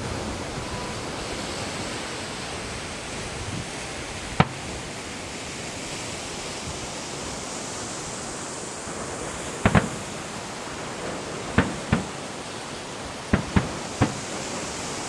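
Fireworks bursting at a distance: sharp single bangs at irregular intervals, one a few seconds in and then about seven more bunched in the second half, over a steady background hiss.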